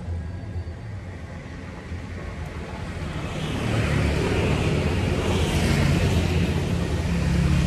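Low, steady hum of a motor vehicle's engine, with a rushing noise that grows louder about halfway through.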